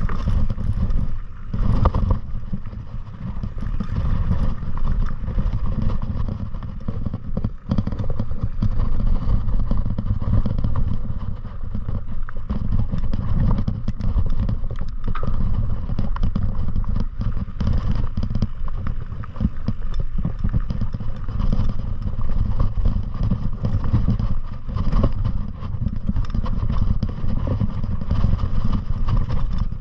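Continuous low rumble with constant rattling and clatter from riding down a rough, rocky trail.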